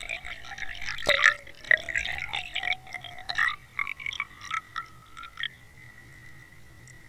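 Water bubbling and splashing around an underwater camera towed on a trolling line just below the surface: wavering pitched gurgles broken by sharp clicks and knocks. After about five and a half seconds these stop and a steady high tone remains.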